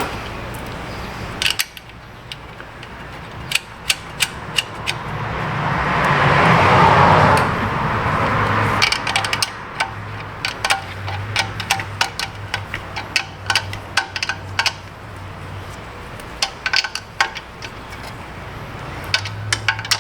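Hand tools clicking and clinking irregularly on metal as a wrench works the compressor's line fittings. A rushing noise swells and fades around the middle.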